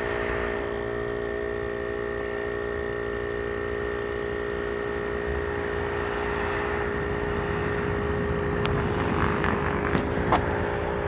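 Pittsburgh air compressor running steadily and kind of loud, a constant mechanical hum pumping air into a low car tyre. A few faint clicks come near the end.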